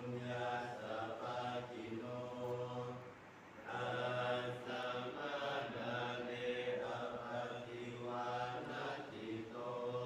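Group Buddhist chanting: many voices reciting in unison on a near-steady pitch, with a short pause for breath about three seconds in.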